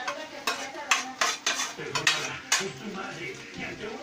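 A utensil scraping and knocking against a pan while stirring fried rice: a string of sharp clinks and scrapes, roughly two a second.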